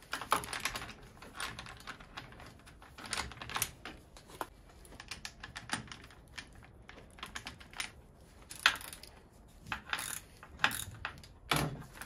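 Irregular small clicks and clatters of metal parts as a bicycle saddle's rails are seated in the seat-post clamp and the clamp bolt is worked with a hex wrench, a few louder clicks near the end.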